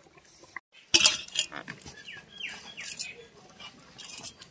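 Hands squeezing and working crumbly flour dough in a steel bowl, with a short rustling burst about a second in. A bird chirps a few quick falling notes in the background.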